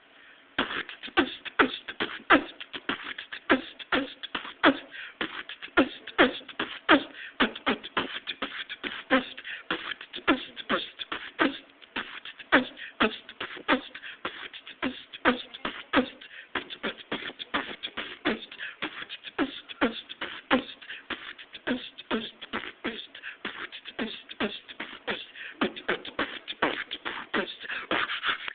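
A person beatboxing: a steady, fast rhythm of percussive mouth clicks, pops and snare-like hisses, starting about half a second in.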